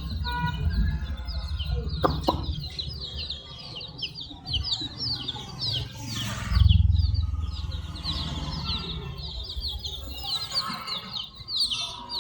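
A group of baby chicks peeping continuously, many short falling chirps overlapping. Under them runs a low rumble, loudest about six and a half seconds in, which fades out near the end.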